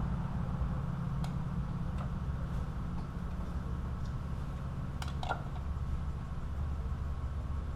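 A steady low engine hum like a vehicle idling, with a few light clicks and ticks of parts being handled, the sharpest a pair about five seconds in.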